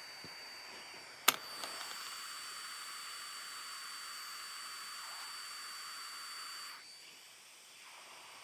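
X-Tronic 7040 Pro-X hot air rework wand blowing heated air for solder-paste reflow. A sharp click about a second in is followed by a steady hiss of air with a thin high whine, which cuts off about two-thirds of the way through.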